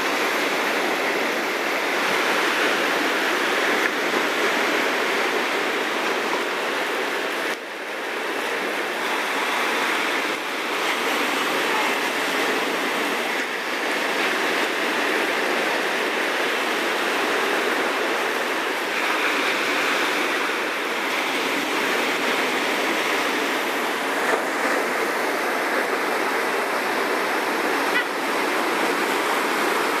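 Small Atlantic waves breaking and washing up the beach: a steady rush of surf, dipping briefly about seven and a half seconds in.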